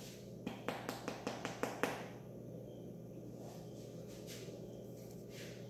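Small plastic cups handled on a kitchen counter: a quick run of about eight light clicks and taps in the first two seconds. After that only a faint low steady hum remains.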